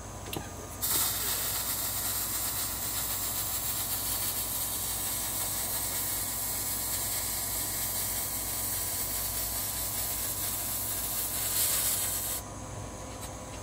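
MIG welding arc running on steel, a steady hiss that starts about a second in and cuts off near the end.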